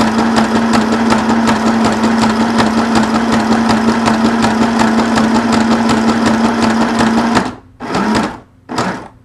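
Janome Sew Mini sewing machine running, its motor humming steadily as the needle zigzag-stitches through cardstock. It stops about seven seconds in, then runs in two short bursts near the end as the stitching edges up to the corner.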